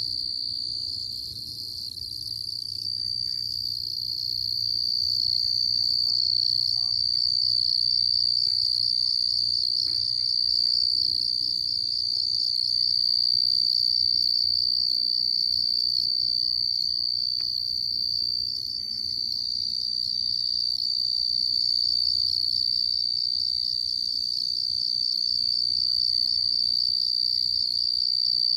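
A chorus of crickets trilling: one steady high-pitched trill with a fast pulse.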